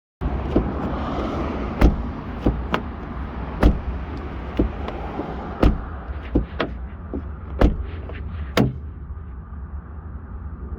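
Irregular sharp clicks and knocks from handling at a car door, about a dozen over several seconds, over a steady low rumble.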